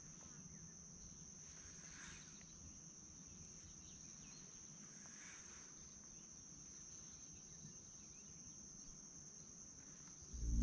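Faint, steady high-pitched chirring of insects, with two soft swishes about two and five seconds in.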